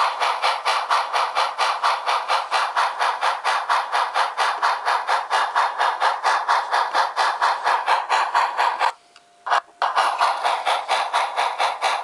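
Model steam-locomotive chuffing from a sound decoder, played through tiny 20 mm high-bass speakers: steady, rapid chuffs about five a second, thin with little bass. About nine seconds in it cuts out for under a second, then resumes.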